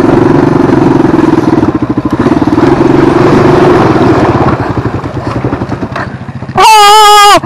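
Honda 250 cc dirt bike engine running as the bike moves along, then faltering and dying away over the following couple of seconds, as when the engine stalls. Near the end, a loud wavering tone cuts in, louder than the engine.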